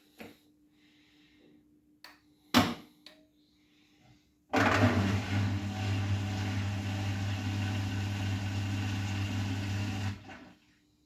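Arçelik 9120M front-loading washing machine starting a cycle: a few clicks, then its water inlet valve hums and water rushes in for about six seconds before cutting off.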